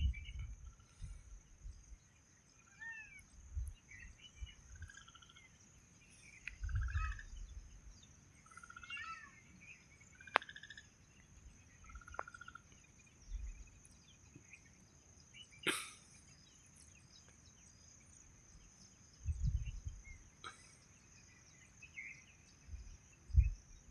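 Small birds chirping now and then, in short rising and falling calls, over a steady high-pitched hum. There are a few low thumps and one sharp click just after the middle.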